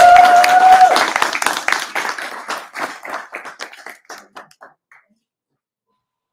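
A small audience clapping for a graduate, with one person's drawn-out cheer rising and held for about a second at the start. The clapping thins out and stops about five seconds in.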